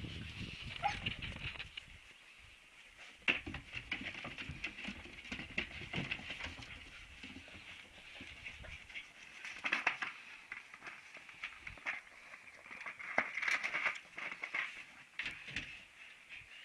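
Young Siberian husky puppies squeaking and whimpering in thin, high voices, over scattered clicks of claws on a tiled floor.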